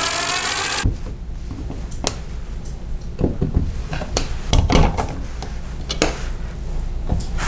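A cordless brushless drill/driver whirs briefly, driving a receptacle mounting screw into the plastic electrical box, and stops just under a second in. Then come scattered clicks and knocks as the receptacle and its plastic cover plate are handled and pressed into place on the wall box.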